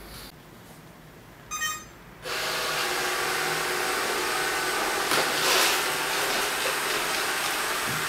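ILIFE V7 robot vacuum starting up: a short electronic beep, then about two seconds in its suction fan and brushes start and run steadily as it sets off.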